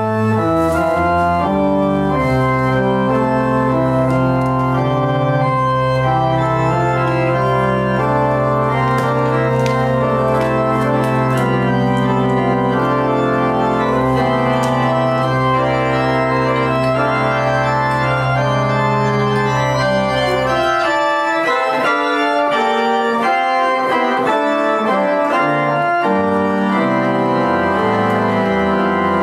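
Organ playing slow sustained chords over a long-held bass note; the bass note drops out about two-thirds of the way through while the higher chords continue.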